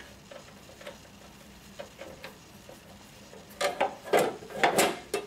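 End panel of a Stuart D4000 water still's control housing being fitted on: a few faint small clicks, then several sharp knocks and clatters about three and a half seconds in as the panel is pushed into place.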